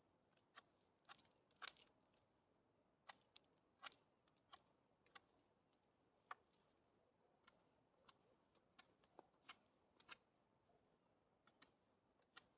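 Near silence broken by faint, irregular small clicks and ticks, about one or two a second.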